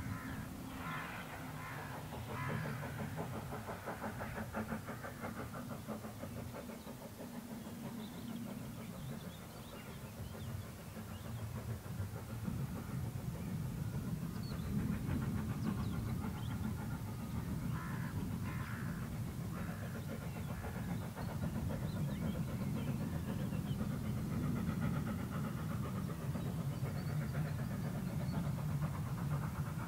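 Hunslet Austerity 0-6-0 steam locomotive working a train, its exhaust beats and the rumble of the train growing louder as it approaches.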